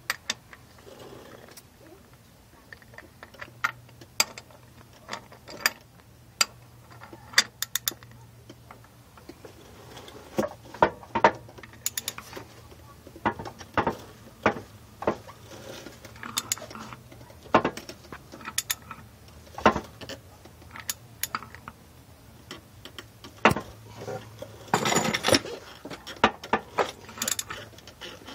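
GM LS1 V8 engine running with a low steady hum and sharp, irregular knocks every second or so, with a denser rattle about 25 seconds in. This is a bottom-end knock that could be from the flex plate.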